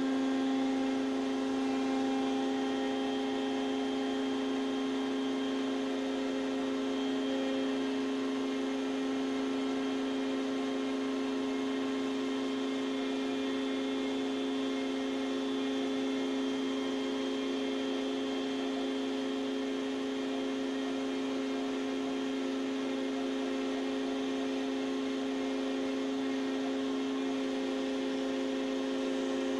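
Homemade CNC router running a cutting program: the router spindle motor gives a steady high-pitched whine with many overtones that holds even throughout.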